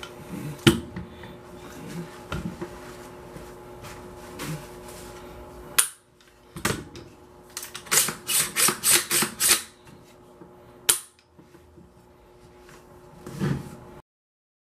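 Handling noise from an AR-15 pistol being wiped with a cloth and picked up: rubbing, scattered knocks, and a quick run of about six sharp clicks past the middle, with a low thump near the end.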